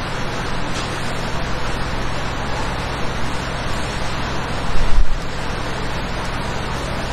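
Steady background hiss with a low, even hum underneath, and one brief thump about five seconds in.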